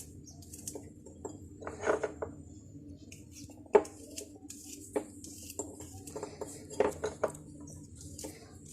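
Irregular knocks and clinks of a knife cutting peeled garlic cloves, the pieces going into a glass bottle, with one sharper knock a little under four seconds in.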